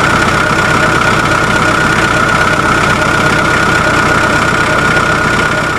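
Sound effect of a truck engine running steadily, with a steady high tone over the rumble; it starts and cuts off abruptly.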